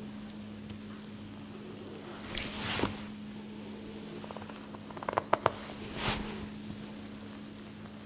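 A barber's hands at work in a head and back massage: a couple of brushing rubs over skin or hair and, about five seconds in, a quick run of sharp clicks, over a steady low hum.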